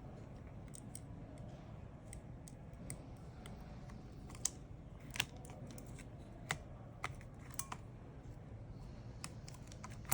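Scattered small clicks and taps of a phone and small repair tools being handled on a workbench, irregular and sparse, with most of them in the middle of the stretch, over a faint low background hum.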